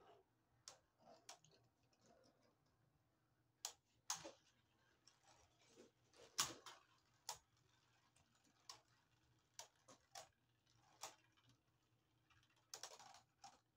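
Two Beyblade Burst spinning tops clashing against each other and the plastic stadium: irregular sharp clicks and knocks, the loudest about six and a half seconds in.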